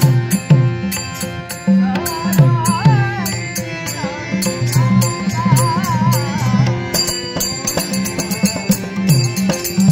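Traditional Konkan devotional theatre music: a pakhawaj, the double-headed barrel drum, plays a steady rhythm under sharp high strokes keeping time. A wavering melody with vibrato rises over it through the middle of the stretch.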